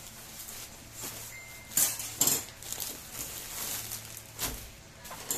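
Plastic courier mailer bag rustling and crinkling as it is handled and torn open, and a plastic-wrapped parcel is pulled out, with two sharp, louder crackles about two seconds in.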